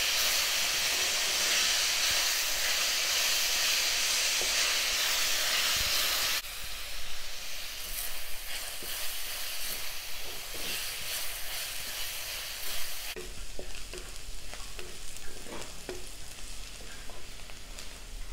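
Chopped onions sizzling in hot oil in a kadai, stirred with a wooden spatula that scrapes and taps against the pan. The sizzle is steady for about six seconds, then drops suddenly to a quieter sizzle with frequent scraping taps, and drops again about thirteen seconds in as the onions brown.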